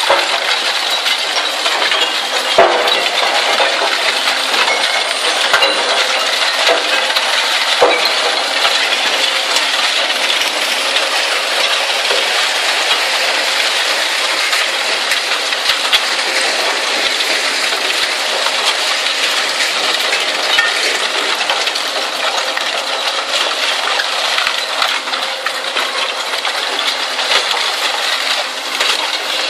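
Zato Blue Devil twin-shaft shear shredder running, with shredded steel scrap clattering and clinking continuously as it spills from the discharge chute onto the pile. A few louder knocks stand out in the first eight seconds.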